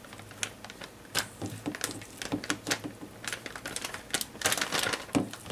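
Plastic zip-top bag crinkling, with a run of irregular small clicks and crackles that grows busiest about four seconds in as the bag is filled with sliced venison and handled.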